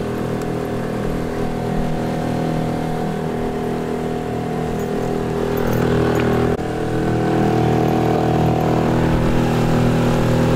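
Outboard motor of a small aluminium boat running steadily at cruising speed. It is a little louder after about six and a half seconds in.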